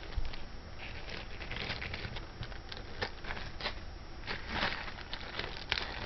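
Small plastic bag crinkling and rustling as it is handled, with a few light clicks scattered through.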